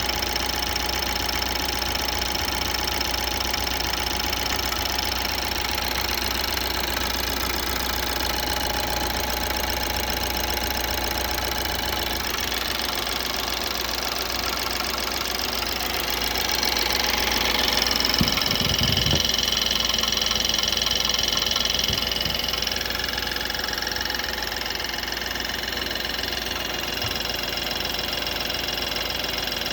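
BMW N20 2.0-litre turbocharged four-cylinder engine running near idle with a knock whose cause the owner cannot place. It runs louder and higher for a few seconds a little past the middle, then settles back.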